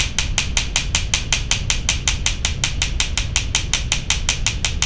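Rapid, even taps of the flat face of a small riveting hammer on a metal tube rivet, about five to six light strikes a second, flattening and spreading the rivet's flared head.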